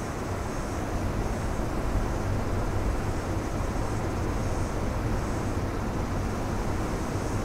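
Ocean surf breaking on a rocky shore: a steady low rumble and wash of waves, swelling slightly a second or two in.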